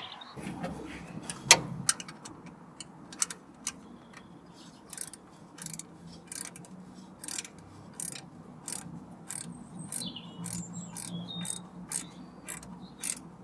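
Socket ratchet clicking in short strokes, about once or twice a second, as it turns a spark plug in the engine.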